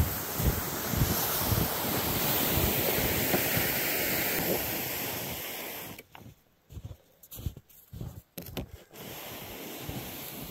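Blizzard wind blowing hard and buffeting the microphone in low gusts. About six seconds in it drops away suddenly, with only a few short flurries, then comes back as a steadier, quieter rush.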